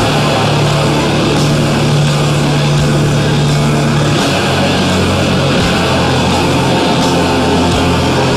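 Loud heavy metal music with guitar, dense and unbroken; the low sustained riff note shifts about four seconds in.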